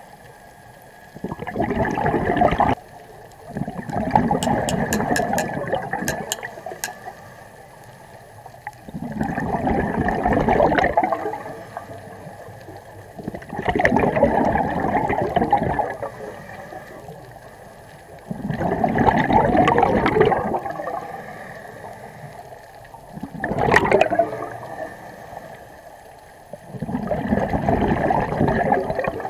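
Scuba diver's exhaled breath bubbling out of the regulator, a gurgling rush of bubbles about two seconds long, repeating roughly every four to five seconds, seven breaths in all.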